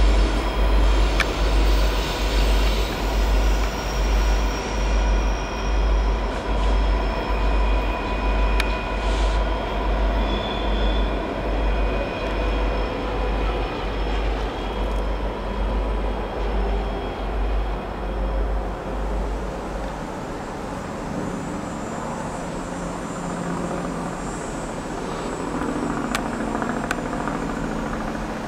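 Norfolk Southern freight train on a sharp mountain curve: a deep diesel-locomotive rumble that pulses about once a second and eases off about 20 seconds in, with thin squealing tones from wheels on the curve.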